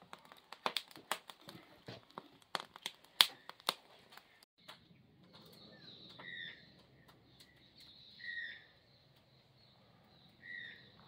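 Wood fire in a rustic stove crackling and snapping as sticks are pushed in, a run of sharp irregular clicks. About four and a half seconds in the scene changes to birds calling outdoors, with three short chirps over a faint steady low hum.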